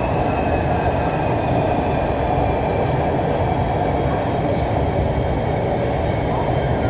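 Orange Line metro train running along its track, heard from inside the carriage: a steady rumble of the wheels on the rails with a faint high whine above it.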